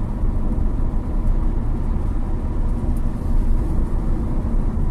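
Steady low rumble of a car's road and engine noise heard from inside the cabin while cruising on a highway.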